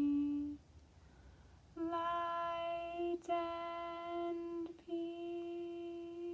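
A woman humming one long, steady note that starts about two seconds in, with two brief breaks.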